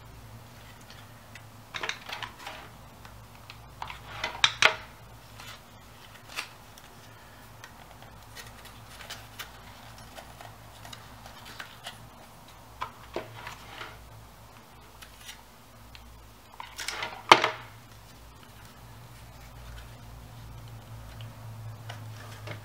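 Paper strips of a hand-built paper grid being bent and handled, giving scattered short rustles and clicks, the loudest about 17 seconds in, over a faint steady low hum.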